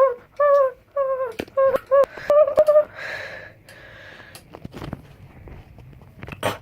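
A person's voice making a string of short, wordless, high-pitched cries, about three a second, followed by a brief breathy rush and a few scattered clicks.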